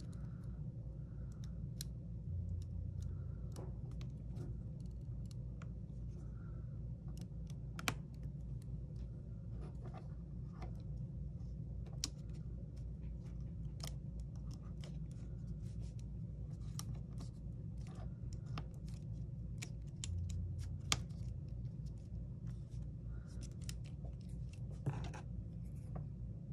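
Irregular small clicks and taps of fingers and tiny metal parts on an opened iPhone 6: the screen's ribbon-cable connectors being pressed back onto the logic board and a small shield bracket being fitted. A steady low hum underneath.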